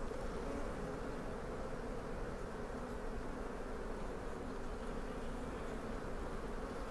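Steady buzzing of honeybees around an open hive during a frame inspection.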